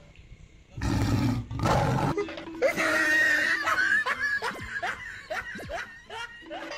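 Two short, loud, rough bursts of sound, then a run of laughter in quick repeated falling syllables that slowly fades.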